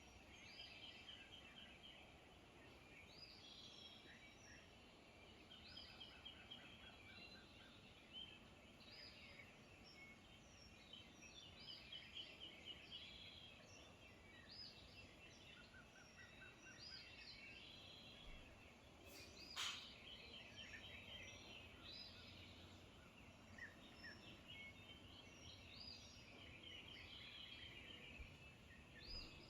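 Faint dawn chorus of many wild birds, with short chirps and rapid trills calling over and over. A single sharp click comes about two-thirds of the way through.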